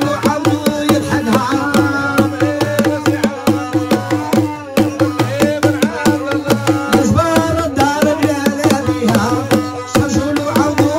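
Live medahat music: hand drums beating a fast, steady rhythm under a wavering, ornamented melody line.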